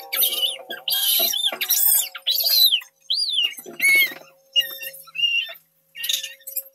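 Baby crying and screaming in short, high-pitched bursts whose pitch rises and falls, with brief breaks between cries.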